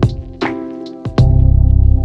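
Background music: sustained bass and held chords with regular drum hits.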